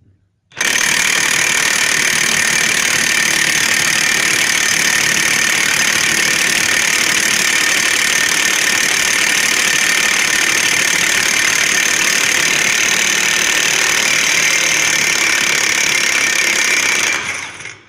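DeWalt DCF899HB 20V brushless 1/2-inch cordless impact wrench on its highest speed, hammering steadily and loudly on a seized, rusted 3/4-inch bolt for about sixteen seconds. It stops near the end, when the bolt has broken loose.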